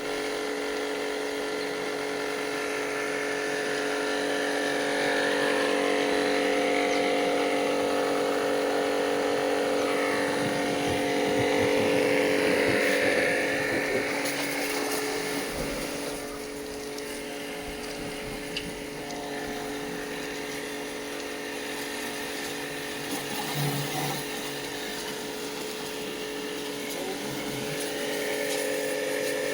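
Power sprayer running steadily, its pump motor humming under the hiss of the spray jet. The hiss swells about halfway through, then eases.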